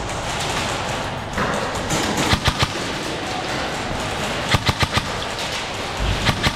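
Airsoft guns firing in short strings of sharp shots: about three a little over two seconds in, four more about two seconds later, and two or three near the end, over a steady background noise.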